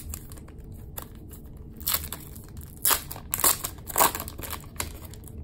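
Foil wrapper of a trading-card pack being torn open and crinkled: several short crinkling tears between about two and four seconds in.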